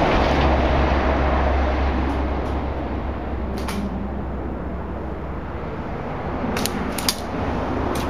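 Airsoft rifle firing a few short shots: single sharp clicks about two seconds in, a quick pair around three and a half seconds, and a short cluster near seven seconds, over a steady background hiss.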